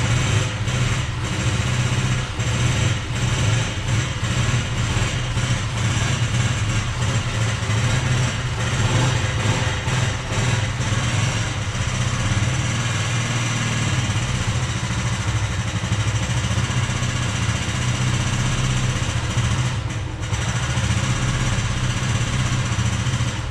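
Kick-started motorcycle engine idling unevenly, warming up from cold after sitting unused for a month or two. It is still too cold to take much throttle and stalls if opened up.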